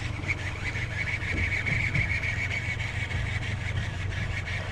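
Boat engine running steadily at idle, a constant low hum with a steady high whine over it.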